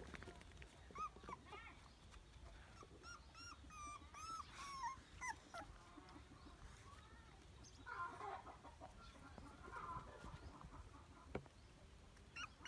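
Young puppies whimpering and squeaking softly, in short high calls scattered now and then, with thin higher chirps among them.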